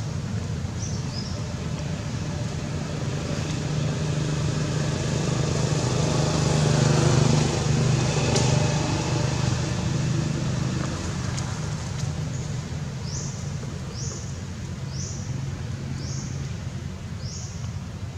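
A motor vehicle's engine hum, swelling louder about halfway through as it passes and then fading. In the last third, a short high rising chirp repeats about once a second.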